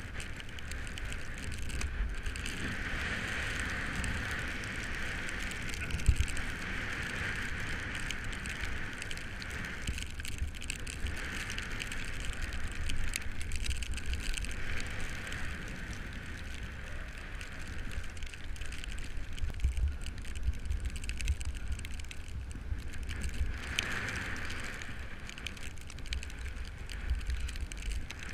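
Road bike running fast on asphalt, heard from a handlebar-level action camera: steady tyre hiss and drivetrain noise over a low wind rumble on the microphone, with one sharp knock about six seconds in.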